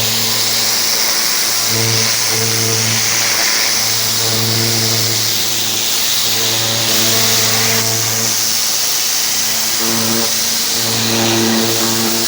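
Pressure washer spraying: a steady hiss of the water jet with a machine hum underneath that drops out and comes back several times.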